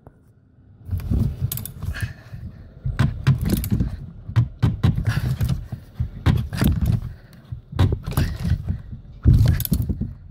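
Hand-tightening of a plastic fuel filter cap on its housing: an irregular run of clicks, knocks and rattles of plastic and metal, starting about a second in.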